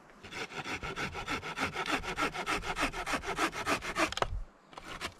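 Hand saw cutting through wood in quick, even back-and-forth strokes, stopping about four seconds in, then starting again briefly near the end.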